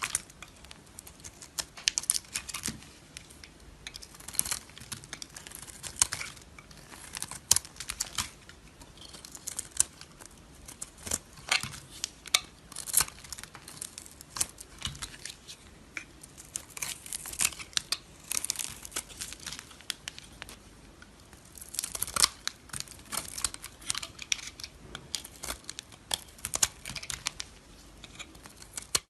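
Knife cutting and carving dry soap: irregular crisp, crackly cutting strokes and clicks, close up, one after another.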